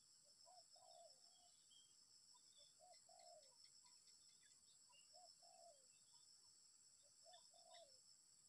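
Spotted dove (tekukur) cooing faintly. Each phrase is a short note followed by a longer falling one, and the phrase comes four times, about every two and a half seconds, over a steady high insect buzz.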